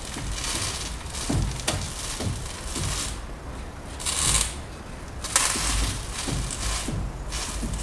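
Front left wheel of a Peugeot Bipper steered back and forth while the van stands still: repeated scrubbing of the tyre against the floor, with low knocks and clicks from the front left corner. These are the tak-tak front-end noises being traced, which come from the left side.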